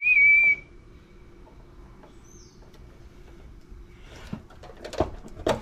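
A short, loud, high-pitched chirp right at the start. Then a quiet low hum with a few light clicks and taps near the end, as wires and a screwdriver are handled in an electric water heater's wiring box.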